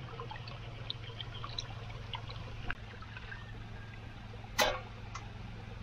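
Water trickling and splashing from a pipe into a plastic tub, with scattered small drips. About four and a half seconds in there is one short, loud slap.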